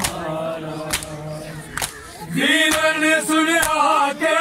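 Men chanting a noha, a Muharram lament, while mourners beat their chests in time, one sharp hand-slap about every second. A loud chanted line comes in a little over two seconds in.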